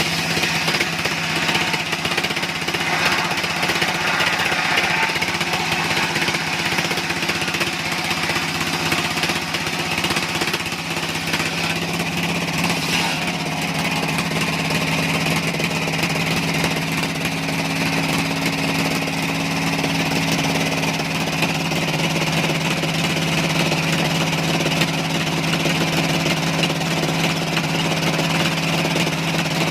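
Sawmill machinery running steadily: an engine-driven saw set with a constant low hum, with a higher hiss over it that eases about twelve seconds in.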